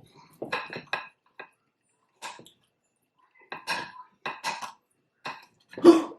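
Dishes and cutlery clinking and clattering: a series of short knocks with pauses between them, the loudest near the end.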